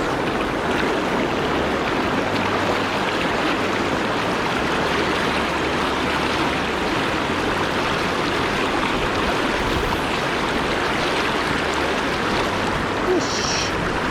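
River current rushing steadily past, an even wash of flowing water, with wind gusting on the microphone as a low uneven rumble.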